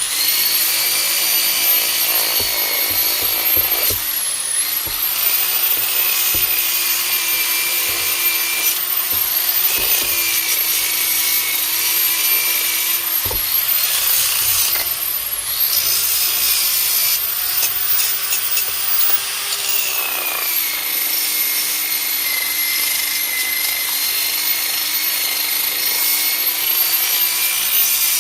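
Electric power tool working wood: a steady motor whine over a rough grinding, rubbing noise. The whine sags in pitch now and then as the tool is pressed into the wood, with a lasting drop about twenty seconds in.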